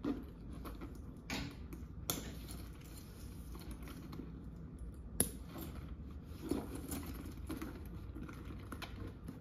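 Metal snap-hook clasps on a leather handbag strap clicking and jangling as the strap is handled and clipped onto the bag, with faint rustle of the leather. Several sharp clicks, the sharpest about five seconds in.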